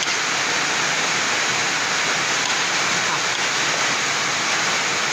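Heavy rain from a tropical storm, a steady, unbroken hiss.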